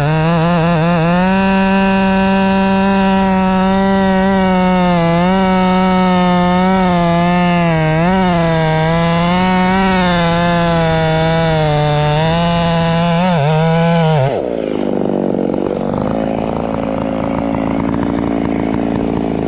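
Farmertec G888 two-stroke chainsaw running at full throttle through a log, its high pitch sagging and recovering again and again as the chain bites under load. About 14 seconds in the throttle is released and the engine drops quickly to a low idle.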